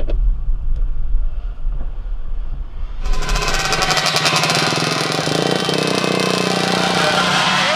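A muffled low rumble of the car, heard from inside the cabin. About three seconds in, the rapid, rattling drone of two-stroke geared moped engines running close by cuts in and holds a steady pitch.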